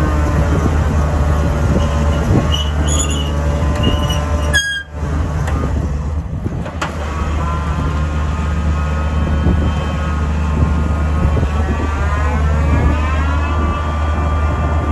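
Heavy diesel machinery running steadily: the PBD boring rig's engine drones low, with a whine above it that slowly rises and falls in pitch, and a brief dip in the sound about five seconds in.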